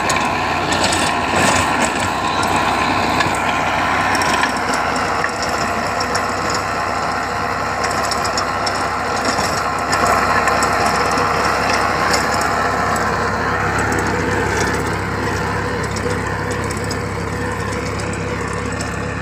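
Swaraj 744 XT tractor's three-cylinder diesel engine running steadily under load as it drives a Mother's Land 5.5-foot rotary tiller through its 540 rpm PTO, the tiller blades churning through the soil. A little quieter in the last few seconds.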